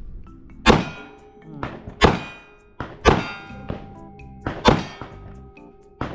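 A 9mm pistol fired four shots in slow succession, a second or more apart, each a sharp crack with a short ringing tail. Fainter cracks fall between them.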